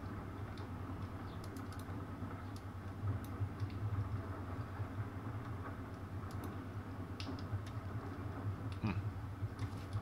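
Scattered, irregular clicks of a computer keyboard over a steady low hum.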